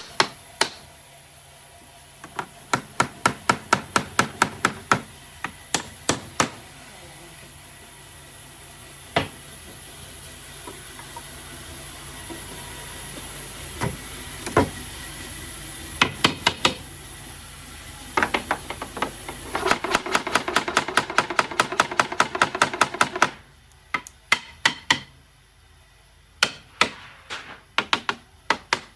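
Hammer blows on wood, struck in quick runs of taps with single heavier strikes between, over a steady background noise that cuts off about three quarters of the way through.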